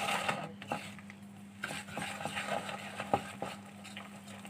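Wire whisk mixing flour into thick carrot cake batter in a bowl: soft scraping and stirring, with a few sharp clinks of the whisk against the bowl.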